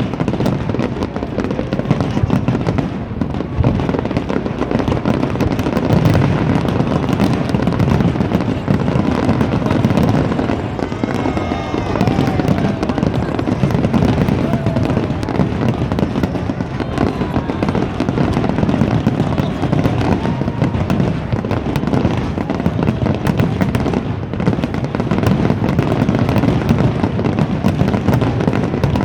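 A dense, continuous barrage of fireworks and firecrackers going off, with rapid crackling and banging that never lets up.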